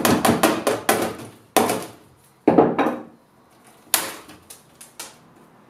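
A fast run of knocks on the thin old wooden shelf panel of a bookcase, about five a second through the first second, then a few heavier knocks and sharp cracks of splintering wood as the broken panel is pried and pulled out of its frame.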